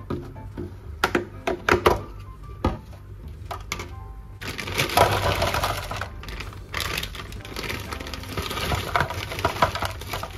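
Several sharp clicks and knocks of objects being handled, then a steady rushing hiss from about halfway.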